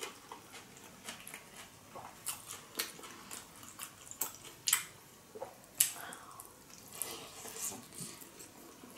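Close-miked chewing of sushi: wet mouth sounds with sharp clicks and smacks at irregular intervals.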